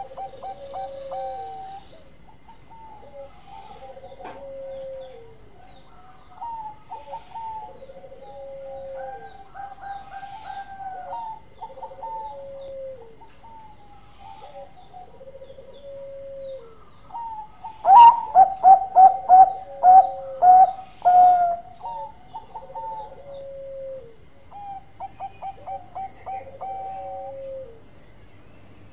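Zebra dove (perkutut) cooing: a repeated two-part phrase, a higher note then a lower falling one, about every two seconds. About two-thirds of the way in comes a much louder run of about eight quick clipped notes.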